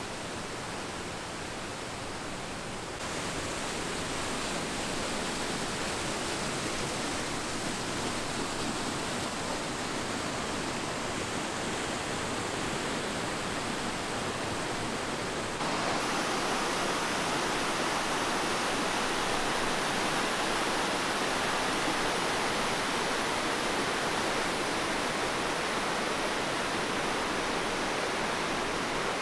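Rushing water of a mountain stream: a steady hiss with no pitch, which jumps louder abruptly about 3 seconds in and again about 16 seconds in.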